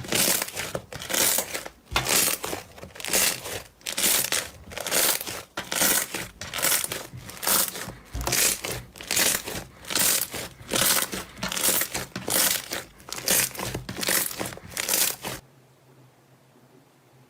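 Slime being squeezed and pressed by hand, giving a crinkling, crackling crunch about once a second; it stops suddenly near the end.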